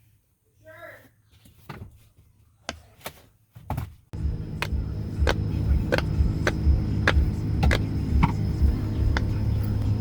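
Silicone pop-it fidget toy bubbles being pressed, a series of sharp little pops at about one or two a second. About four seconds in, a steady low drone comes in under the pops.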